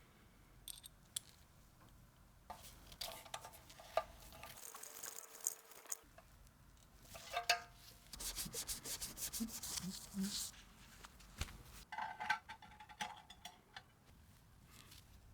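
Faint rubbing and scrubbing on the parts of an Ensign Ful-Vue box camera being cleaned by hand, in separate spells with a run of quick strokes in the middle, and a few light clicks.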